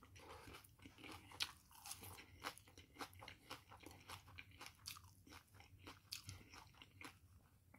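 Faint close-up chewing and crunching of food: a string of small, irregular crisp clicks and mouth smacks from eating fried taquitos and shredded lettuce, one a little louder about a second and a half in.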